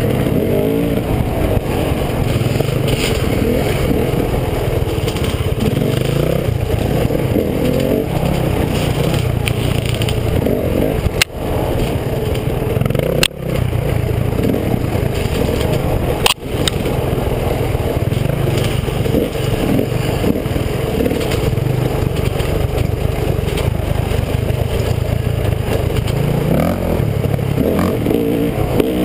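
Dirt bike engine heard up close from the riding bike, running under load with the revs rising and falling over rough trail. Three sharp clicks cut in about halfway through.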